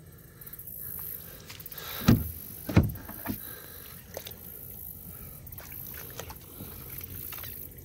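Two loud hollow thumps about two and three seconds in, then scattered lighter knocks, on a Sun Dolphin kayak's plastic hull.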